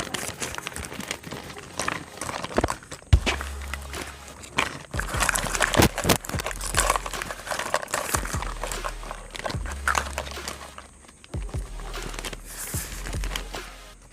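Unboxing sounds from a miniature toy kitchen set: packaging crinkling and rustling, with frequent sharp clicks and taps of small pieces being handled. A low hum comes and goes underneath.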